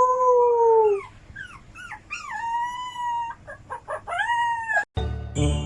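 A dog howling: a long howl slowly sliding down in pitch, a few short rising yelps, then a second, higher held howl and more short yelps. It stops abruptly near the end.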